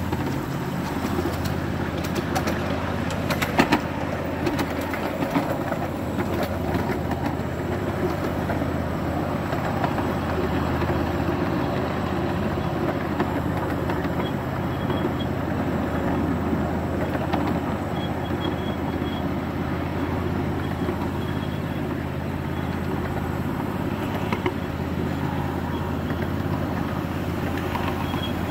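Model trains running on a layout: a steady low rumble and hum, with a few sharp clicks about three to four seconds in.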